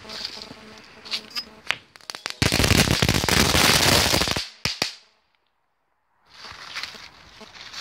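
Category 1 crackling ball fireworks going off: a few scattered sharp pops, then about two seconds of dense, rapid crackling, the loudest part, trailing off into a few last pops.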